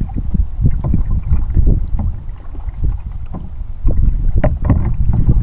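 Double-bladed paddle strokes splashing in the water beside a folding plastic kayak, over heavy wind rumble on the microphone, with a couple of sharp knocks a little past four seconds in.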